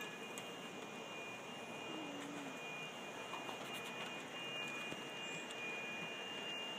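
Faint, steady rushing noise of a distant aircraft overhead, with a thin high whine.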